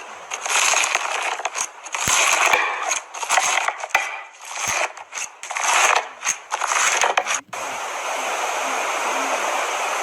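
Slime being pressed and worked by hand, giving uneven bursts of crackling and scraping with small clicks, then a steady hiss in the last couple of seconds.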